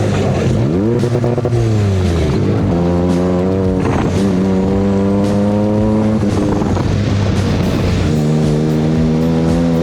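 Off-road buggy's engine running hard on a track, with background music laid over it.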